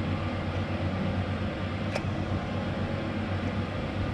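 Steady low mechanical hum, with one light click about two seconds in.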